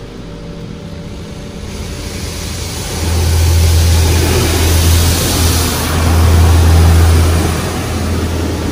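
Automatic car wash heard from inside the car: spinning cloth brushes and water slapping and scrubbing over the soaped windshield and body. The noise builds up and is loudest from about three seconds in, with a deep rumble under it.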